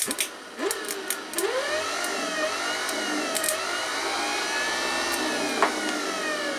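Starter-generator for a Briggs & Stratton cast-iron engine, run as a motor straight off a 12-volt car battery: a few sharp clicks as the jumper lead makes contact, then it whirs up to speed with a rising whine within about two seconds and runs steadily, and starts to wind down near the end. It shows the unit works as a starter.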